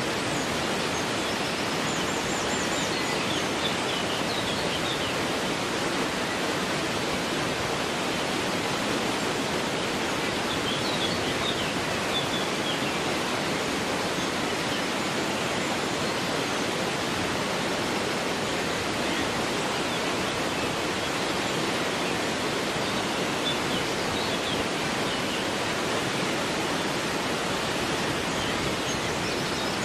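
River water flowing in a steady rush, with faint high bird chirps a few times.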